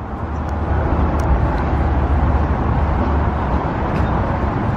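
Steady road traffic noise: an even, continuous low rumble.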